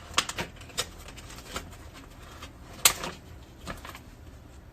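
Irregular light clicks and taps, with one sharper knock about three seconds in.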